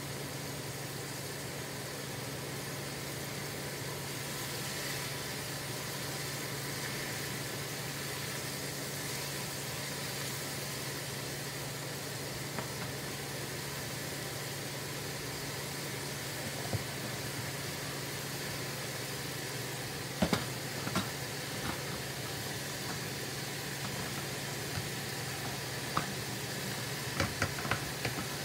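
Chicken gizzards deep-frying in hot grease in a saucepan: a steady, dense sizzle of bubbling oil over a steady low hum. A few sharp clicks, about two-thirds of the way in and again near the end, from a utensil knocking against the pot.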